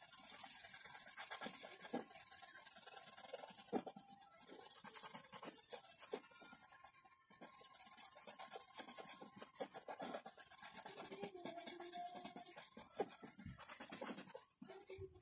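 Drawing tool shading on paper: many quick, repeated rubbing strokes across the sheet, over a steady hiss.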